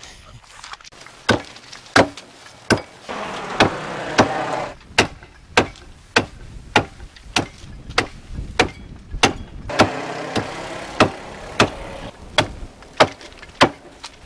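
Steel meat cleaver chopping caribou meat (shoulders and ribs) on a wooden board: about nineteen sharp chops at a steady pace, roughly one every 0.6 s, starting about a second in. A rushing background noise swells up twice behind the chops.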